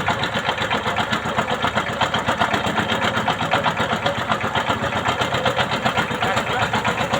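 Boat engine running steadily at an even speed, a fast regular chugging of firing pulses.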